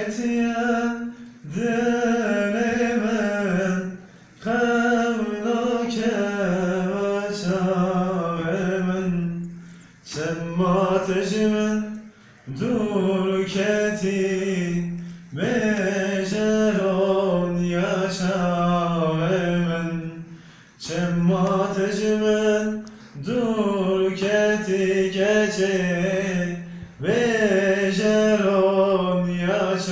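A man singing alone without accompaniment, in long held phrases whose notes waver and turn, with a short breath between each phrase.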